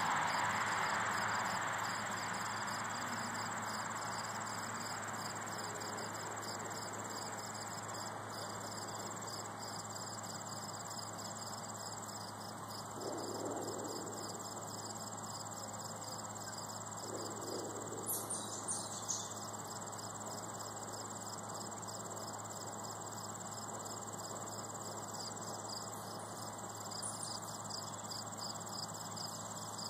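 Crickets chirping steadily in a late-summer garden: a high, even trill with a fast, regularly pulsing chirp beneath it. A passing vehicle fades out in the first couple of seconds.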